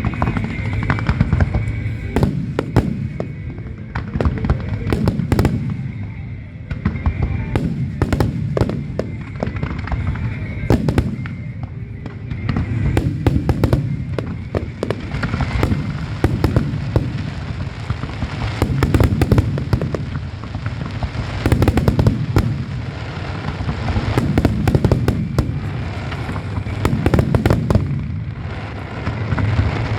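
Aerial fireworks display: shells bursting in rapid succession with deep booms and sharp cracks, the barrage swelling and easing in waves.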